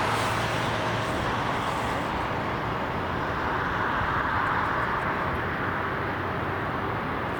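Jet airliner engines giving a steady rushing roar that swells slightly and eases off again.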